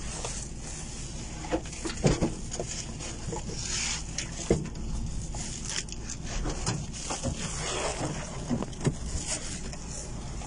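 Woven plastic sacks rustling, with scattered knocks and thumps as they are handled and pulled out, over a steady low rumble.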